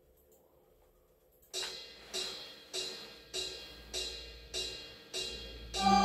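After a second and a half of quiet, a steady count-in of short, bright hi-hat-like ticks, about one every 0.6 seconds, seven in all. Acoustic guitar notes come in just before the end.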